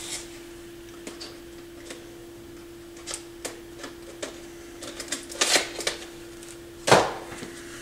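Pioneer PL-707 turntable running with a steady hum and no rattle, its belt tensioned by a plastic wedge. Scattered light clicks and taps come over it, with one louder knock near the end.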